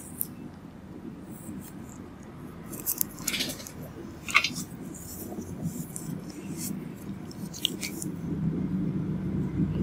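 Room background with a low, steady murmur, broken by a few short sharp clicks around the middle. The murmur grows into a louder rumble near the end.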